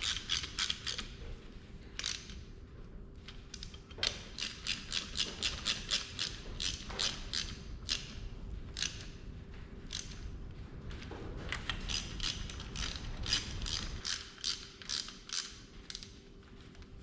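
Hand ratchet wrench clicking in quick runs of strokes as bolts or a plug are run in and tightened, with short pauses between runs.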